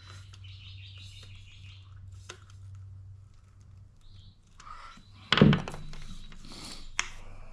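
Handling noises from work on a plastic drain pipe: a sharp click a little after two seconds in, then a loud thunk about five and a half seconds in and another click near the end. A bird chirps in the background in the first two seconds.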